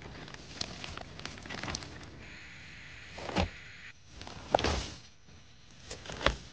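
Hands rustling through wet grass, with a few short bumps, the loudest about three and a half, four and a half and six seconds in.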